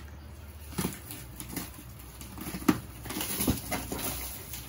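Clear plastic wrapping on a cardboard box crinkling and crackling as hands work it open, in irregular bursts, with a sharper click a little past halfway.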